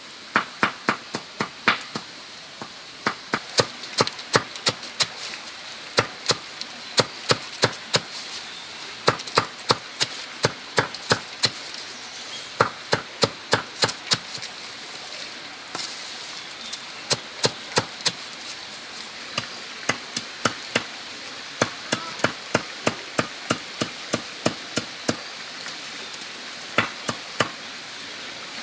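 Knife chopping a pile of leafy greens on a sack spread over packed earth: runs of short, sharp chops about three a second, with brief pauses now and then.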